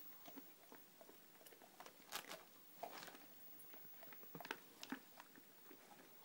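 Faint, scattered crunching of a dog chewing dog treats, with the clearest crunches about two, three and five seconds in.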